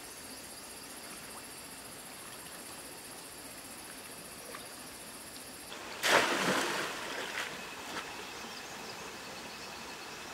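Bamboo fish trap pushed down into a shallow stream: one loud splash about six seconds in, then two smaller splashes. Before and after it, a steady background of running water and high insect buzzing.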